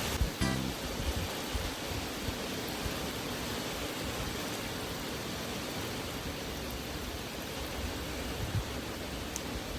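Steady heavy typhoon rain, an even rushing noise with no breaks.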